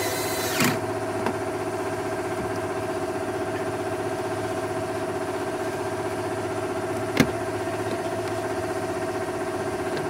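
Steady mechanical hum of the 2009 Audi S5 running. A short hiss fades out under a second in, and there is a sharp click about seven seconds in.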